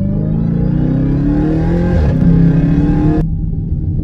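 Jeep Grand Cherokee Trackhawk's supercharged 6.2-litre Hemi V8 accelerating hard, heard from inside the cabin. Its pitch climbs, breaks briefly about two seconds in as it shifts up, climbs again, then drops off suddenly about three seconds in.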